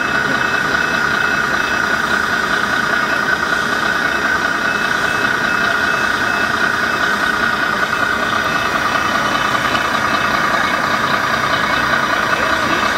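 Steady engine idling sound with a constant high hum, unchanging throughout.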